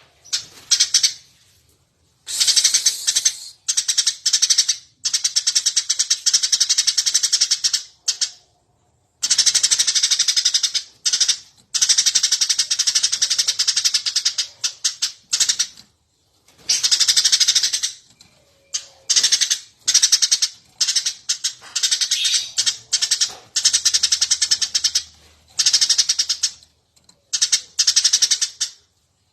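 Eurasian tree sparrow chirping energetically, in fast runs of high, rapidly repeated chirps lasting one to three seconds each, with short pauses between runs.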